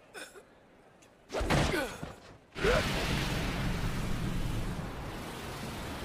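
Anime fight sound effects: a brief sweeping whoosh, then, about two and a half seconds in, a sudden blast that runs on as a steady deep rumbling rush of noise, slowly fading.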